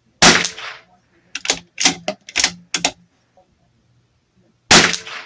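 Bergara B14R .22 LR bolt-action rifle firing two shots about four and a half seconds apart, with the bolt worked in a quick run of metallic clicks between them.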